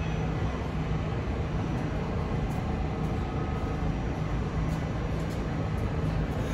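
New York City subway train at a station platform, a steady rumble with a constant low hum.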